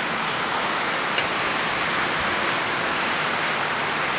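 A steady rushing noise with no change in level, and a single short click about a second in.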